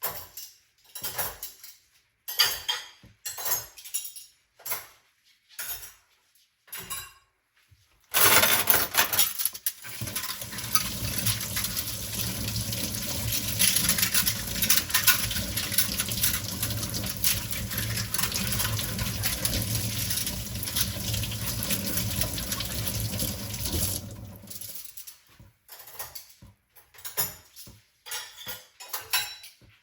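Dishes clinking and knocking in a kitchen sink, then the tap turned on, water running and splashing into the sink steadily for about sixteen seconds before it is shut off, and the clinking of dishes starts again.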